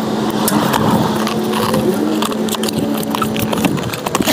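Folding knife slicing through packing tape on a cardboard box, then the box's cardboard flaps pulled open, with scraping, crackling and clicking of the cardboard. A steady low hum runs underneath and stops shortly before the end.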